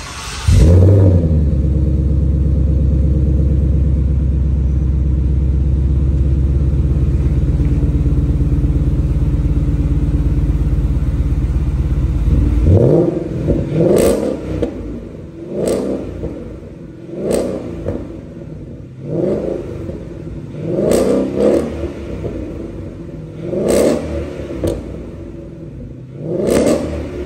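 Ford Mustang GT's 5.0 V8 through a Magnaflow dual catback exhaust with quad tips: it fires up with a flare about half a second in and idles steadily for about twelve seconds. Then the level drops and it is revved in a series of short throttle blips, one every two seconds or so.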